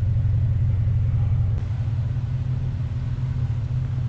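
Car engine idling through a large aftermarket exhaust: a steady, low rumble with no revving.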